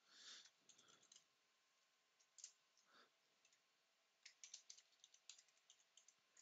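Faint computer keyboard typing. A short run of key clicks comes near the start and a few single keys follow, then a fast run of key presses fills the last couple of seconds.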